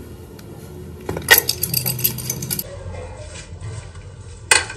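Small metal parts clinking and rattling for about a second and a half, then a single sharp metallic knock near the end.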